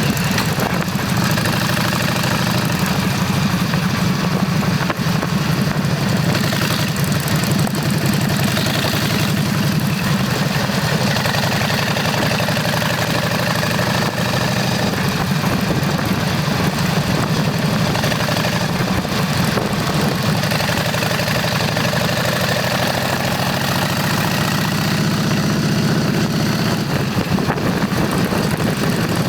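Motorcycle engine running steadily, with an even rush of wind noise over it.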